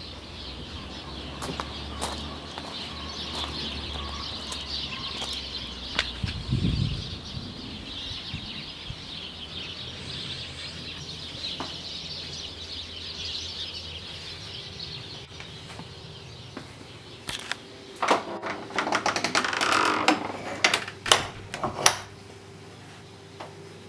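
Small birds chirping steadily in a garden, then, late on, a run of sharp knocks and clicks as a wooden ledged door with an iron latch is worked and opened.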